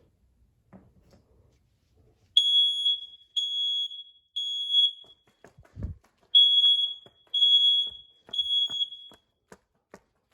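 Smoke alarm set off by aerosol test smoke, sounding its evacuation pattern: three high-pitched beeps, a pause, then three more beeps. A brief low thump falls in the pause between the two groups.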